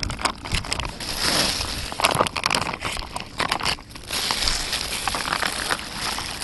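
Plastic bag rustling and crinkling as it is handled, with irregular crackles, while groundbait is mixed in it.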